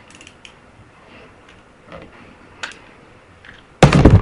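Beyblade spinning top running in a plastic stadium, a faint whir with a few light ticks scattered through it. Near the end comes a short, loud rustling thump, the loudest sound here, from the camera or stadium being handled.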